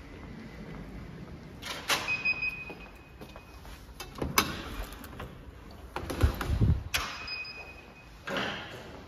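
Glass lobby doors being opened and passed through: clicks and knocks from the door and its latch, a short thin squeal heard twice, and a heavy thud about six seconds in.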